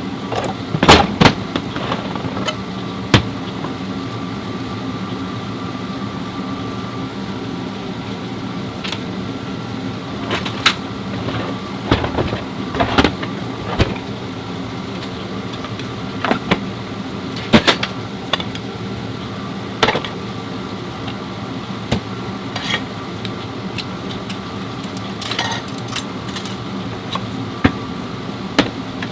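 Scattered sharp metallic knocks and clicks, like tools and parts being handled, over a steady machine hum.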